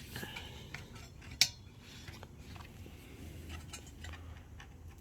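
Light metallic clinks and taps from the sheet-metal furnace heat shield being handled, with one sharp click about a second and a half in.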